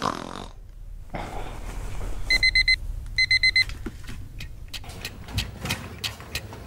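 Digital alarm clock going off: two short bursts of rapid, high electronic beeps, about a second apart. A run of light taps follows near the end.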